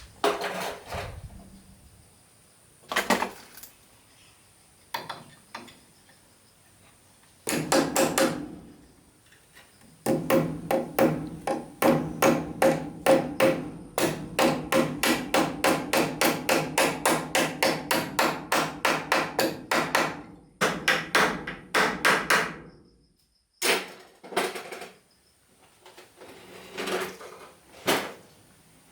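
Hammer striking wood. A few single blows come first, then a long, fast, even run of about three to four blows a second for around ten seconds, then a few more scattered blows.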